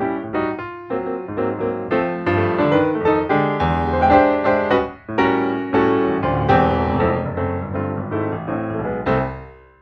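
Background piano music: a quick, flowing run of notes that fades out near the end.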